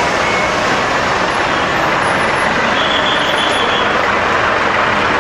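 Road vehicles driving past close by on a narrow street: a steady, even rush of traffic noise.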